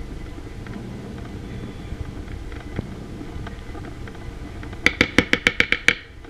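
A steady low hum with faint scrapes, then near the end a quick run of about eight sharp ringing taps: a utensil being knocked against the dish to clear off pudding.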